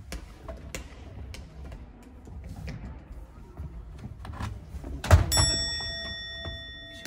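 Light clicks and knocks of metal goal-frame poles being handled. About five seconds in, a loud clang as a metal goal post strikes the wooden gym floor, then rings on and fades over about two seconds.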